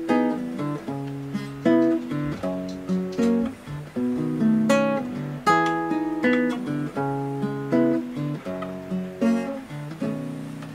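Background music on acoustic guitar: plucked notes and chords, each ringing and fading.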